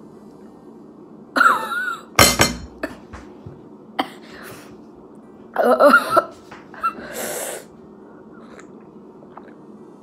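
A woman coughing, with short pained vocal noises and a long hiss of breath blown out through her mouth, reacting to the burn of an extremely hot sauce she has just eaten. The loudest is a single cough about two seconds in; the outbursts stop a little after seven seconds.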